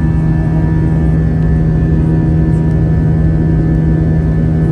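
Airbus A320 jet engine heard from inside the cabin during the climb after takeoff: a loud, steady drone with a strong low hum.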